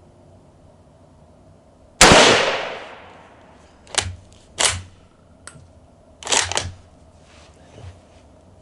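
A single loud rifle shot from a Yugoslavian M48 Mauser chambered in 8mm Mauser, with a long echoing tail. Several quieter sharp clacks follow over the next few seconds.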